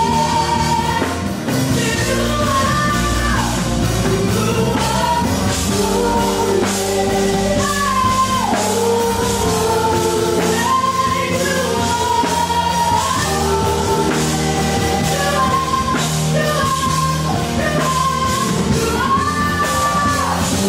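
Live gospel worship music: a woman's lead vocal belting long held notes that slide from one pitch to the next, with backing singers, keyboard and electric guitar playing underneath.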